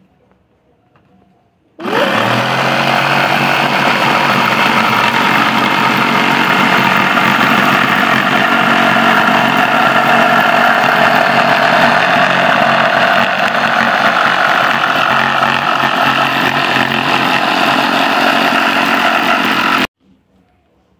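Corded Skil electric jigsaw cutting through a pine board: the motor comes on about two seconds in, runs steadily while the blade saws, and stops abruptly near the end.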